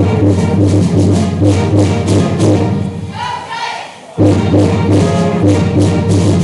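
Loud recorded music with brass over a steady beat. About three seconds in it drops out for a moment, a brief voice is heard, and the music comes back in abruptly about a second later.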